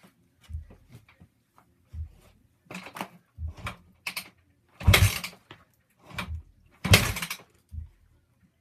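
2006 Yamaha WR250F four-stroke single being kicked over on a cold start: a string of low thuds with a clatter roughly every second, the loudest about five and seven seconds in, and the engine does not catch.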